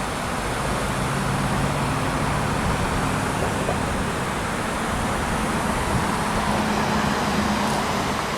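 Steady road traffic noise, with low engine hums from passing vehicles coming and going.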